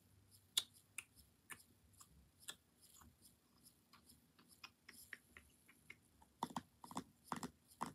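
Scattered light clicks and taps of fingertips on the plastic lid of a slime tub, louder and closer together near the end.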